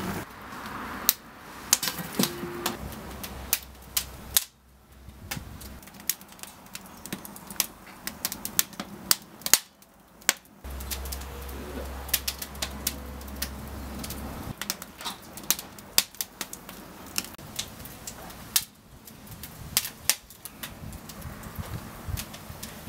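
Split wood kindling burning in an open fire bowl, crackling with irregular sharp snaps, several a second, and a few louder pops.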